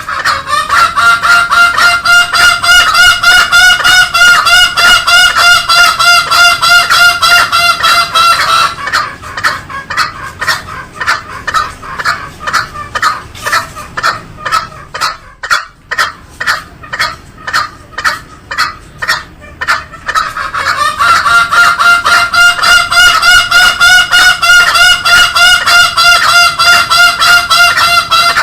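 Green junglefowl calling loudly: a rapid run of short calls, several a second, with a long warbling drawn-out call laid over them twice, once near the start and again for the last part.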